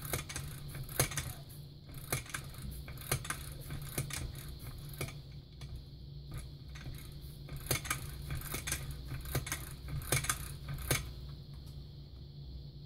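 Scattered small metallic clicks and clinks from hands handling and adjusting parts of a Lee Load-Master progressive reloading press, a few seconds apart, over a low steady hum.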